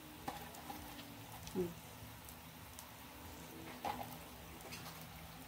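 Quiet room with a faint steady hum, a brief faint voice sound about a second and a half in, and a few light ticks near the end.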